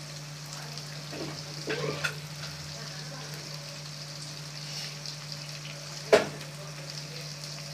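Garlic cloves, shallots and green chillies sizzling in oil in an aluminium kadai, a steady frying hiss. A few soft clicks near two seconds in and one sharp click about six seconds in.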